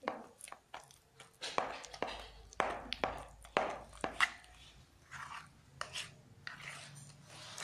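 Thick, wet bakso dough being mixed by hand in a plastic bowl: irregular slaps and knocks of the mix against the bowl, about one or two a second.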